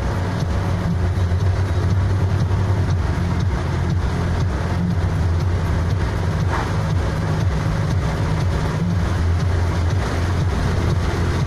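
Steady low engine and tyre drone heard from inside a moving car's cabin while it drives along at road speed.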